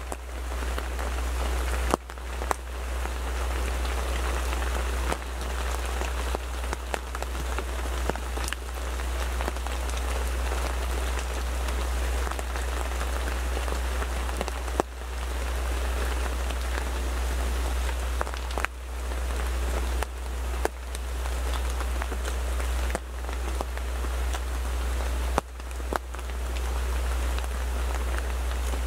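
Rain drumming steadily on a photo blind, with sharp single taps from larger drops every few seconds over a steady low rumble.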